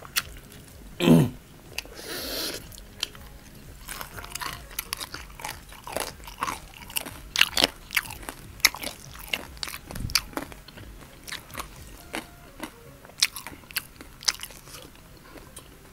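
Close-miked chewing and biting, with crisp crunches and many short mouth clicks, from someone eating fried chicken and spicy instant noodles.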